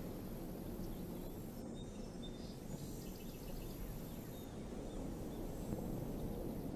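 Outdoor ambient noise: a steady low rumble with a few faint, short high chirps, likely birds, about three seconds in.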